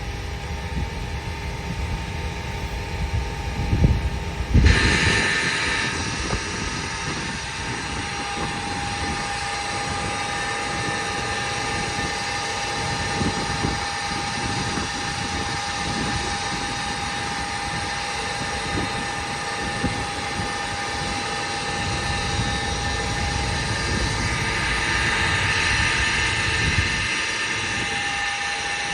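Heavy thunderstorm rain and gusty wind, with low buffeting thumps on the microphone just before the noise rises sharply about five seconds in. After that it continues as a steady rushing noise, swelling a little near the end.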